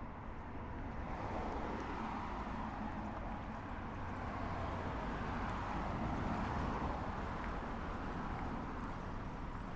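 Street traffic: a car's engine and tyre noise on the road swell over several seconds, then ease off a little near the end.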